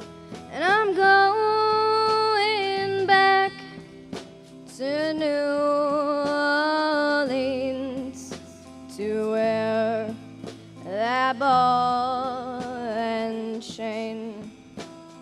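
Live music: a singer holds four long, wavering notes that scoop up at each start, over guitar chords.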